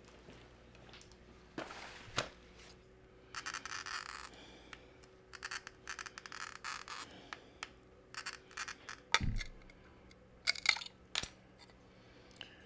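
Hand-cutting sheet glass: short scratchy strokes of a glass cutter scoring the glass, with sharp clicks as pieces are handled and snapped off with pliers. There is one dull knock about nine seconds in.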